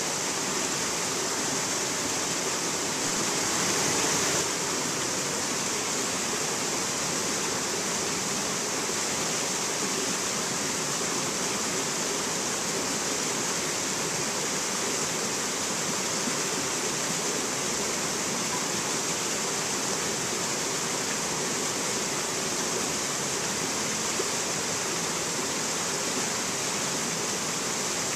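Rocky mountain stream rushing and cascading between boulders, a steady, even hiss of water, a little louder for about a second around three to four seconds in.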